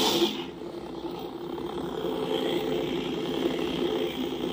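Lightsaber sound effects from the BK Saber Sounds Survivor 2 soundfont, played through the speaker of a Genesis Custom Sabers Creed saber's CFX sound board: a sudden loud ignition at the very start, then the blade's steady electric hum, which grows a little louder over the next couple of seconds.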